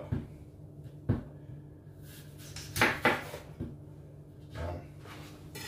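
Kitchen knife cutting through an apple and knocking on a wooden chopping board several times, with a louder pair of knocks about three seconds in.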